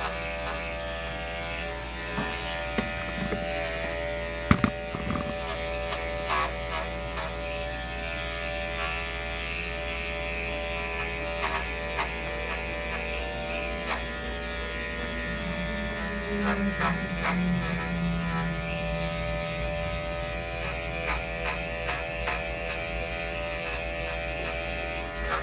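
Electric pet-grooming clippers running with a steady buzz as they cut through a dog's thick coat. Scattered sharp clicks and knocks sound over the buzz, the strongest about four and a half seconds in.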